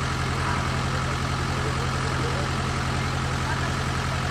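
Engine of a vintage military vehicle idling steadily, a low, even hum with a regular pulse.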